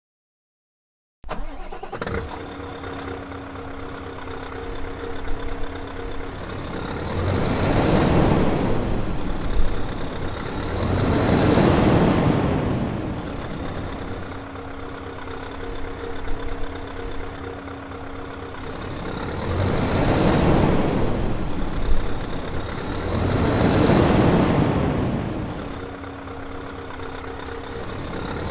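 Scania 770 hp V8 diesel truck engine, starting about a second in and settling into a steady idle. It is then revved up and back down four times, in two pairs of long rising-and-falling swells.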